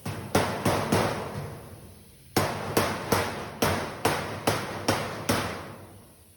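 Hammer blows on a sheet-metal duct elbow: about a dozen sharp strikes in two runs with a pause about two seconds in, each ringing briefly. The female Pittsburgh seam on the heel is being knocked closed over the cheek's flange.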